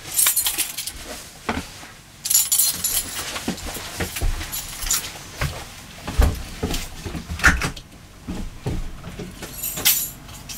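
A bunch of keys jangling in short bursts, about a second at the start and again a couple of seconds in, followed by scattered knocks and clicks.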